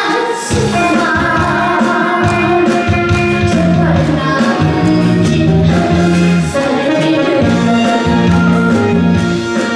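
A boy singing a Korean trot song live into a microphone over instrumental accompaniment.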